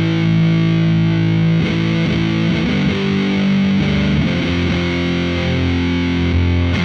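Electric guitar played through a FuzzHugger FX Lab Ratchet fuzz pedal into a valve amp, with sustained fuzzed notes that change every second or so. The pedal's Ratch (gate) control is set low, giving the gated, bit-crushed 8-bit fuzz texture.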